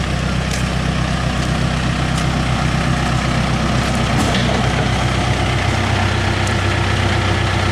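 Diesel engine of a Case 580 backhoe loader running steadily close by, an even low hum, its note shifting slightly about four seconds in.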